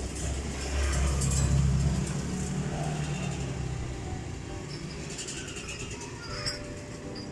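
A motor vehicle's engine passing close by: a low hum that swells over the first two seconds, then fades.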